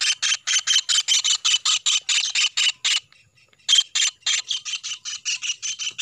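Kingfisher calling in a rapid string of harsh, evenly spaced notes, about seven a second, with a short break about three seconds in.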